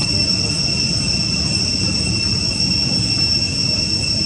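Steady, unbroken high-pitched insect drone, most likely cicadas, over a low rumble of background noise.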